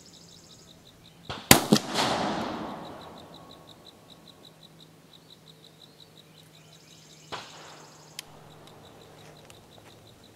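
A single shot from an Uberti Walker .44 percussion revolver firing a full 55-grain black-powder charge behind a round ball, about one and a half seconds in, with a sharp crack and an echo that fades over about a second and a half. Later come two light metallic clicks as the revolver is handled.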